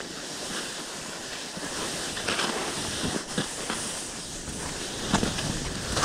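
Wind rushing over a GoPro's microphone during a ski run, with skis scraping over snow, the scrapes louder near the end.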